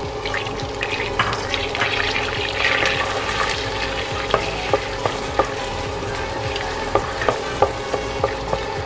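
Butter sizzling in a frying pan as a spatula stirs it, the hiss swelling about two to three seconds in. Sharp clicks of the spatula knocking against the pan come several times in the second half.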